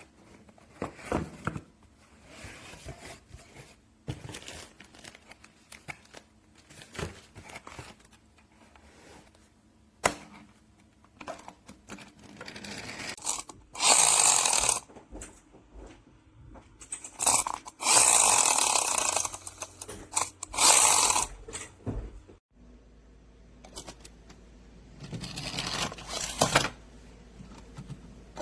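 Plastic press-and-go toy cars being pushed down and let go: their mechanisms whir in several loud bursts of about a second each, among clicks and knocks from handling the toys.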